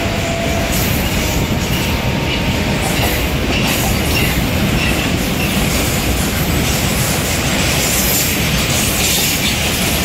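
Freight train of tank-container wagons rolling past close by, a steady loud noise of wheels running on the rails and wagons rattling.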